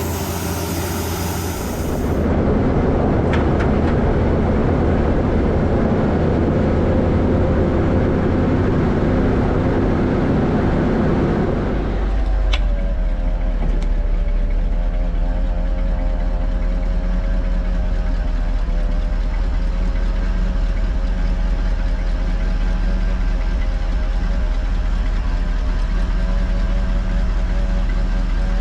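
Heavy diesel farm machinery running steadily. About twelve seconds in, the sound changes to a deeper drone with a wavering whine over it.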